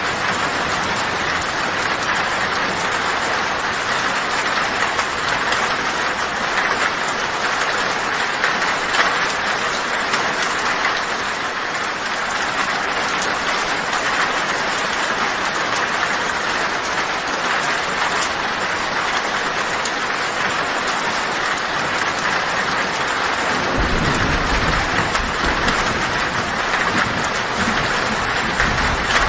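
Heavy rain falling steadily on a tin roof. A low rumble of thunder comes in near the end.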